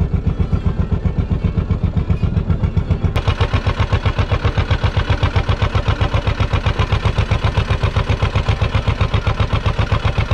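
Inboard engine of a small wooden fishing boat (kaiki) chugging with a quick, even beat. A little after three seconds in, the sound grows brighter and fuller.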